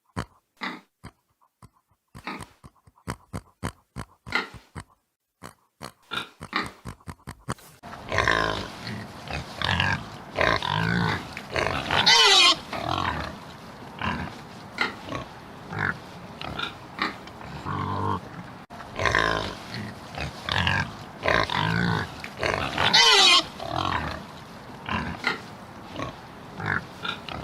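Pigs: a run of short, clipped grunts, then from about eight seconds in a louder stretch of grunting broken by high squeals, loudest twice.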